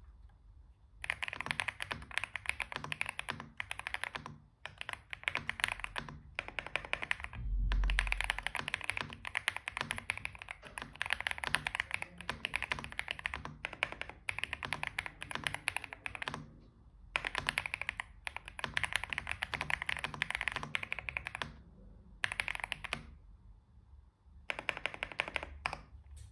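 Fast typing on a stock Xinmeng M87 gasket-mount mechanical keyboard with Xinmeng Dark Plum linear switches: rapid key clacks in long runs broken by a few short pauses, with one deeper thud about seven seconds in.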